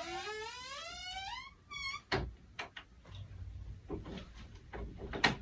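A door creaking open with one long squeak rising in pitch, then several knocks and clicks, the last of them the loudest.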